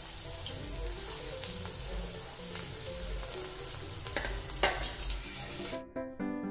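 Murmura (puffed-rice) pakoda balls sizzling steadily as they deep-fry in hot oil, with soft background music underneath and a couple of louder bursts of sizzle about four to five seconds in. Near the end the frying sound cuts off and only piano-like background music plays.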